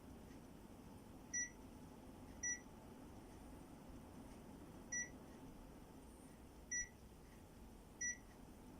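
Panasonic air conditioner beeping five times: short single high beeps at uneven intervals, over a faint steady hum.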